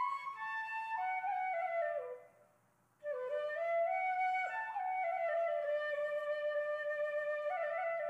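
Background music: a slow solo melody on a wind instrument, its phrases stepping down in pitch, with a break of about a second a little after two seconds in.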